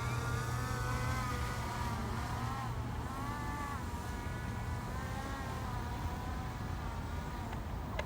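Drone propellers buzzing, several whining pitches that waver up and down as the motors change speed, over a steady low hum; the whine grows fainter after the first few seconds.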